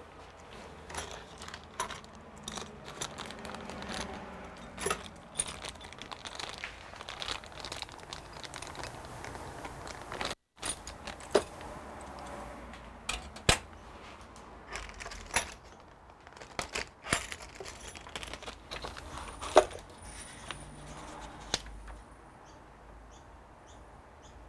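Small hard parts and plastic packaging being handled: scattered clicks and clinks over rustling and crinkling, with a short gap about ten seconds in.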